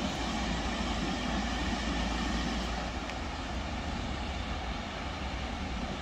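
Steady rushing roar of the Kravice waterfall, a continuous even noise with a deep low rumble.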